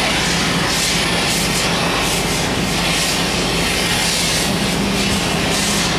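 Handheld garment steamer running as its head is passed over a hanging shirt: a steady hiss of steam with a low, even hum beneath it.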